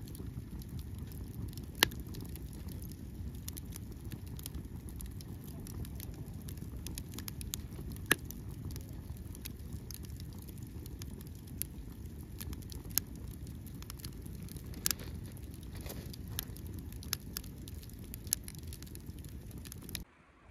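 Firewood burning in a small fire stand, crackling with scattered sharp pops, the loudest about 2 and 8 seconds in, over a steady low rushing noise. The sound drops away suddenly just before the end.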